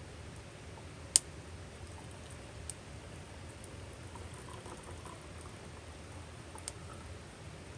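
Hot water poured from a kettle into a metal mug, a soft steady trickle, with a few sharp pops from the wood fire burning in a small box stove, the loudest about a second in.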